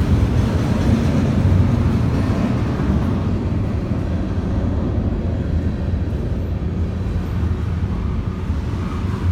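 CN freight train's cars rolling past, a steady low rumble.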